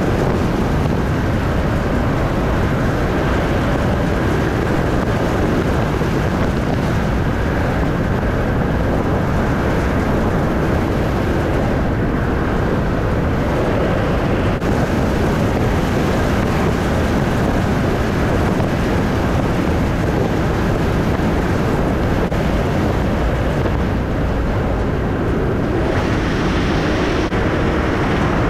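A car driving along a road: steady tyre, engine and wind noise. About two seconds before the end it turns hissier.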